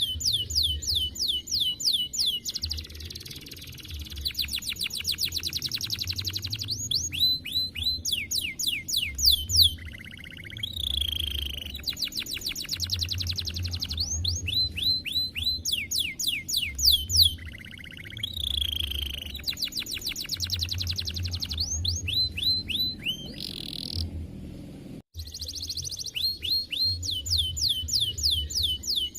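Domestic canary singing a long, continuous song of fast trills and rolls with runs of repeated falling notes, in phrases of several seconds, with a very brief break about 25 seconds in.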